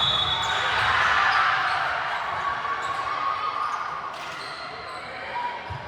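Indoor volleyball match: a hubbub of player and spectator voices echoing in a large gym, loudest in the first two seconds, with a few sharp ball thuds later on.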